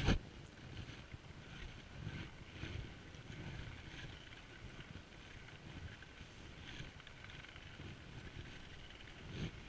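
Faint, uneven rumble of wind on an action camera's microphone, with no clear distinct event.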